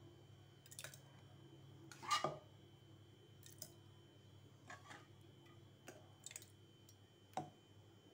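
A spoon tapping and scraping against a ceramic jar as thick sauce is ladled in: a scatter of light clicks, the loudest about two seconds in.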